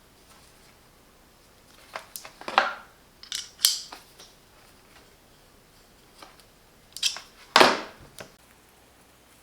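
Hand tools and screwdriver bits clicking and clacking against a hard plastic tool case as they are handled and slotted back into place, in three short bursts about two, three and a half, and seven seconds in. The last burst is the loudest.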